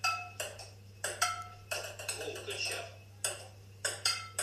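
A table tennis ball in a quick rally, struck back and forth with improvised household bats and bouncing on a wooden kitchen table: a fast, uneven run of sharp clicks, several with a short ringing tone.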